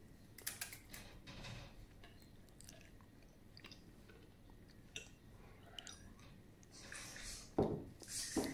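Crunching and chewing of a spicy Takis Blue Heat rolled tortilla chip, loudest in the first second and a half. Near the end a single knock, then the crinkle of the chip bag.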